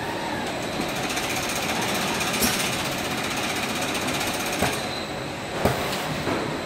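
Top-load case packing machine for 2-litre PET bottles running: a steady mechanical clatter of conveyors and the pneumatic gripper head, with a few sharp knocks in the second half.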